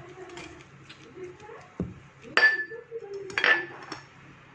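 A utensil knocking against a mixing bowl: a dull knock, then two ringing clinks about a second apart.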